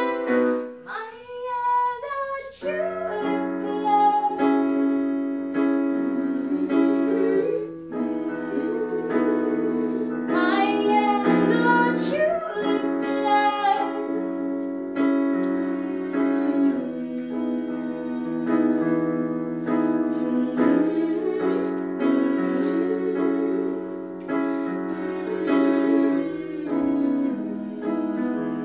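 Live women's singing with a digital piano accompaniment, held notes with vibrato over sustained keyboard chords, dropping back briefly about a second in.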